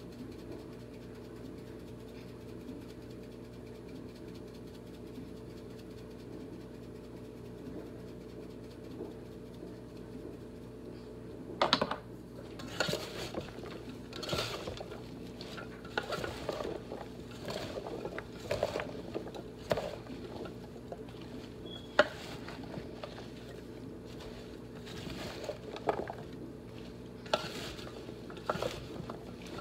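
Chopped potatoes and vegetables being tossed by hand in a speckled enamel roasting pan: irregular rustles and knocks against the pan, starting about twelve seconds in. A steady low hum runs underneath.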